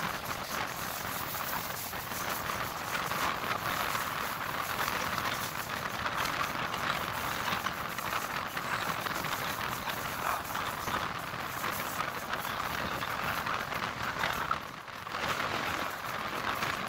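Running noise of a MEMU electric multiple-unit train at speed, heard at an open coach window: a steady rush of wheels on rails and wind, with a brief drop in level near the end.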